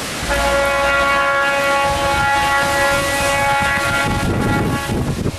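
Norfolk Southern freight locomotive's multi-note air horn sounding one long blast of about four seconds for the grade crossing, then cutting off abruptly; a low rumbling noise follows near the end.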